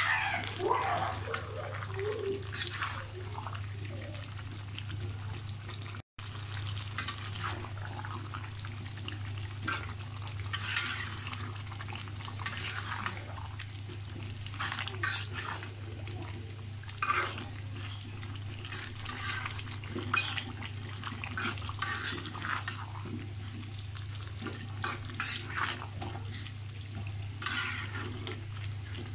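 A spatula stirring and scraping a thick beef and cabbage curry in a black karahi, in irregular strokes against the pan, over a steady low hum.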